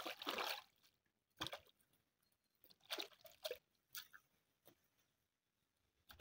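Hands washing cut yam pieces in a basin of water: several brief, faint splashes and sloshes as the pieces are rubbed and moved about.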